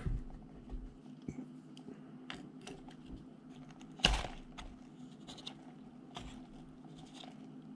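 Small clicks and scrapes of hand tools working a Bakelite capacitor block: a metal pick prodding the softened tar and a pair of pliers handling the block, with one louder clack about four seconds in as the pliers take hold.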